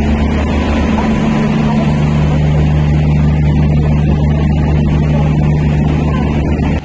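Machinery of a train standing at the platform running steadily: a loud, even drone with several constant low hums.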